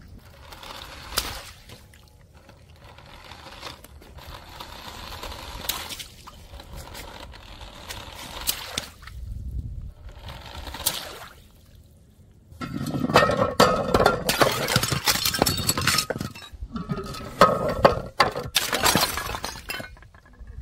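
Brittle plastic bottles cracking and shattering, with shards clinking and skittering on stone slabs. Scattered sharp cracks at first, then a dense run of loud crackling and shattering in the second half.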